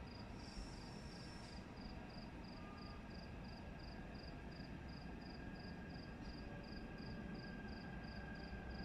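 A cricket chirping steadily at about four chirps a second over a faint low background rumble.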